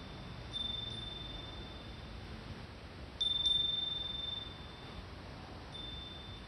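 Iron Japanese wind bell (fūrin) ringing as its clapper is swung by the breeze: one clear high note struck about half a second in, twice in quick succession around the middle (the loudest), and again near the end, each ringing on and fading away.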